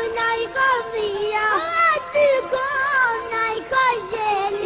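A high-pitched voice sings the melody of an Albanian comic song, phrase after phrase, over instrumental backing.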